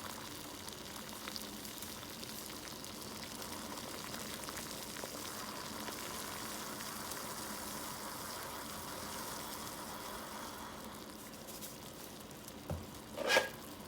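Pot of water at a full boil on a stove: a steady bubbling hiss with fine crackle. Two short knocks near the end, the second one louder.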